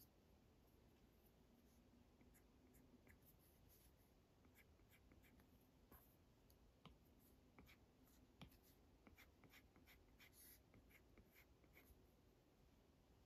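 Faint tapping and light scratching of an Apple Pencil's plastic tip on an iPad's glass screen during sketching strokes: a scatter of small quick ticks, more frequent in the second half.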